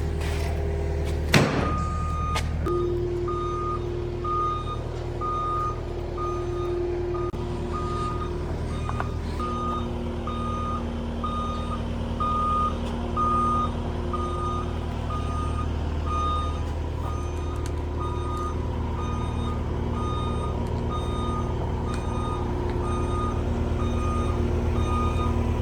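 Electronic reversing beeper sounding regular, evenly spaced high beeps over a vehicle engine running steadily, as a vehicle backs up; a sharp knock sounds about a second in.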